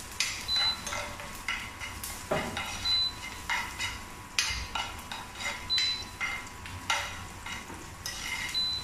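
A spoon stirring and scraping sliced onions, dry red chillies and curry leaves frying in oil with mustard and cumin seeds in a non-stick frying pan: irregular scraping clicks over a steady sizzle. A faint short high tone sounds four times, a few seconds apart.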